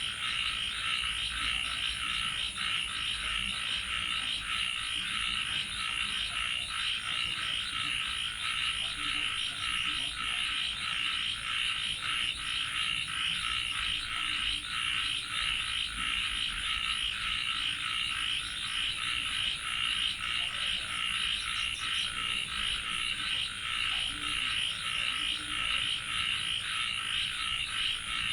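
Dense night chorus of many frogs calling at once: a steady, fast-pulsing mass of croaks with no break, with a thin, steady high whine above it.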